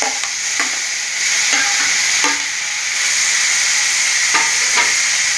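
Chopped tomatoes sizzling as they hit hot oil in a steel kadai, the sizzle getting louder about a second in. A steel ladle knocks and scrapes against the pan several times as the tomatoes are added and stirred.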